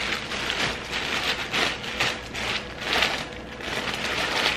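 Clear plastic wrapping bag crinkling and rustling in irregular bursts as it is pulled off a tote bag.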